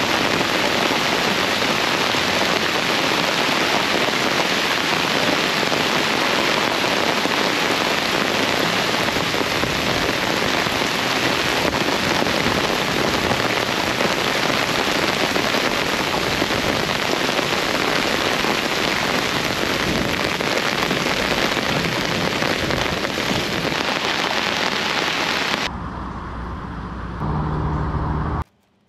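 Heavy rain falling steadily on the boat and its raised top, a dense, even hiss that stops abruptly a few seconds before the end.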